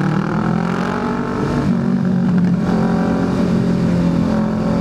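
A vehicle engine running steadily while under way, its pitch drifting up and down slightly.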